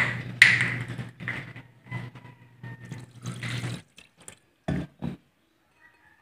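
Sinamak (spiced vinegar) poured from a bottle into a pot over fish, splashing and trickling for about the first four seconds. A few short knocks follow.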